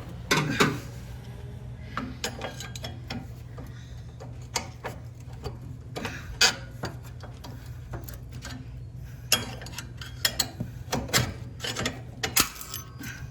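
Irregular metal clicks and taps of hand tools working a stubborn steel hairpin clip off a Murray riding mower's deck lift linkage.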